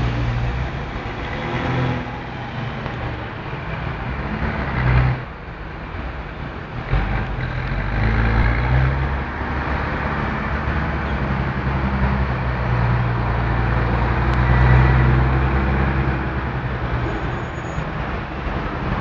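Heavy street traffic: cars and trucks passing close by with engines running, a continuous low rumble under tyre hiss. A brief loud peak comes about five seconds in, and the engine noise swells loudest about three quarters of the way through as a heavy vehicle goes by.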